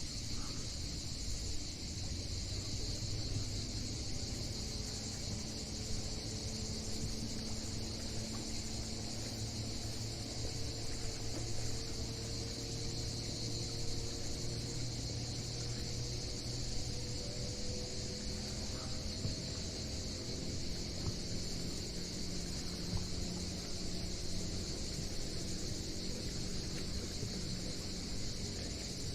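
A steady, unbroken chorus of cicadas shrilling. Under it runs a low engine hum that slowly drifts in pitch.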